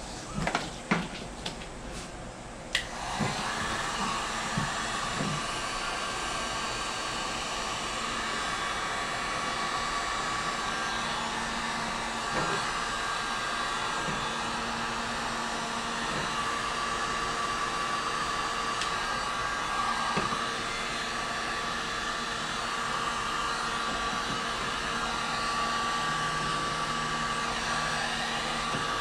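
A few clicks and knocks, then about three seconds in an electric heat gun switches on and blows steadily, shrinking heat-shrink tubing over crimped wiring connections.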